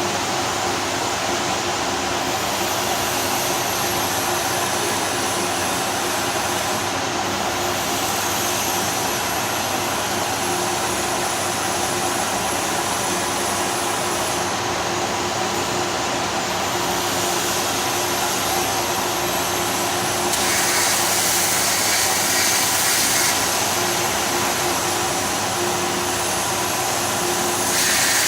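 Workshop machinery running steadily: a continuous hum with several steady tones and a faint high whine. A louder hiss comes in about twenty seconds in for roughly three seconds, and again near the end.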